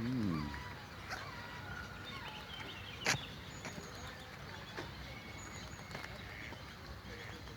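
Small birds chirping with many short, high notes, over a faint background hiss. A brief falling call sounds at the very start, and a single sharp click comes about three seconds in.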